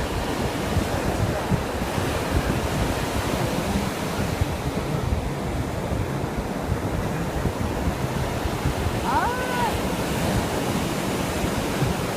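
Ocean waves washing in steadily, with wind rumbling on the microphone. A brief faint call rises and falls about nine seconds in.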